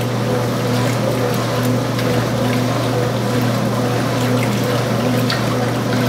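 Early-1980s Montgomery Ward top-load washing machine agitating a load in its wash cycle: a steady motor hum with a tone that pulses in a regular rhythm, over water sloshing in the tub.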